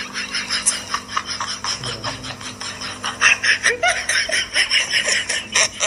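Laughter: a quick run of short laughs that goes on throughout and is strongest a little past halfway.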